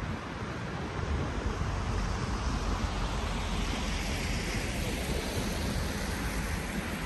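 Steady rushing wind noise on the microphone, with a heavy low rumble.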